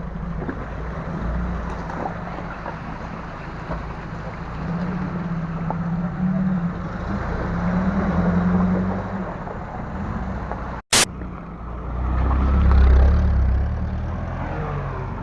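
A car engine working hard under load on a steep off-road climb, its note rising and falling with the throttle. Near eleven seconds in, the sound cuts out briefly with a sharp click.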